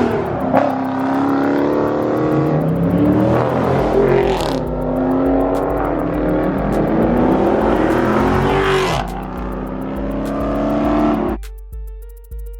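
Dodge Charger Scat Pack's 392 (6.4-litre) HEMI V8 revving, its pitch rising and falling several times, with a music beat underneath from about four seconds in. The engine cuts off suddenly near the end, leaving only the beat.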